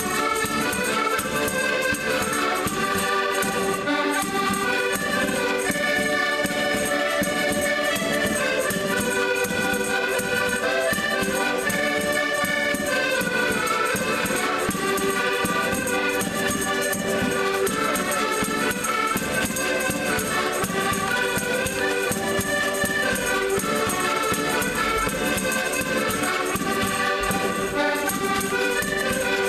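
A group of Portuguese concertinas (diatonic button accordions) playing a traditional tune together in unison, with a bass drum keeping the beat.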